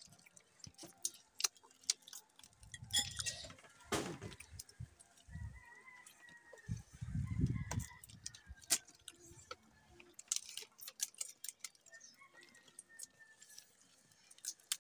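Shells of boiled swimming crabs clicking and cracking as they are picked apart by hand, with a few dull thumps. Chickens clucking in the background.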